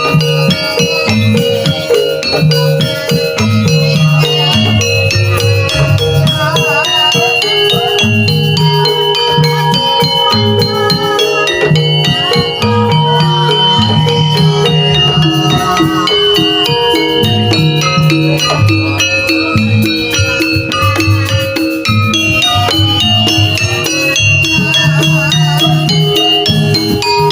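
Javanese jaranan dance music played continuously: held melodic tones over a dense, fast percussion beat, with a wavering melody line coming in twice.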